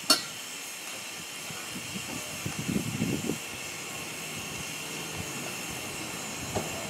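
A 1921 Kelly Springfield steam roller hissing steadily with steam, with a sharp knock right at the start and a short spell of low, irregular rumbling about three seconds in.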